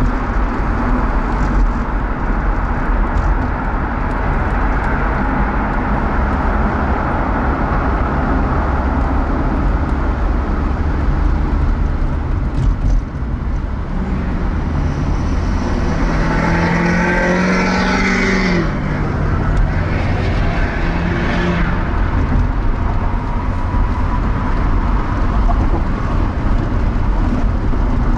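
Steady road and engine noise of a car driving, heard from inside the cabin. A louder pitched sound builds up past the middle and stops abruptly about two-thirds of the way through.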